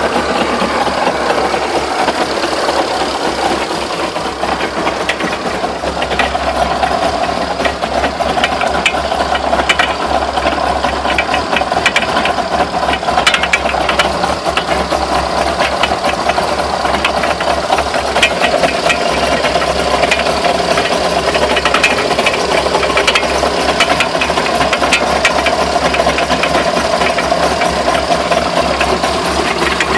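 Car running with a steady hum and frequent irregular knocks and rattles, knocks whose cause the owner is unsure of, wondering whether the driveshafts are bent.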